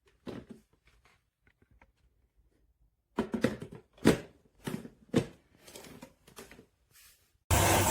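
Scattered knocks and clattering, louder and several a second for a few seconds in the middle, then a loud steady rushing noise starts suddenly near the end.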